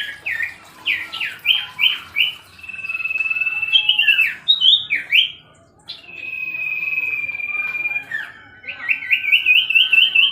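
Common iora (cipoh) singing a varied song: quick down-slurred whistled notes, two long steady whistles, and near the end a rapid run of rising notes.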